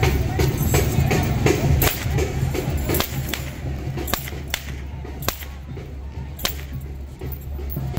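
Several sharp cracks of dancers' rope whips, roughly a second apart, over band music with a steady drum beat.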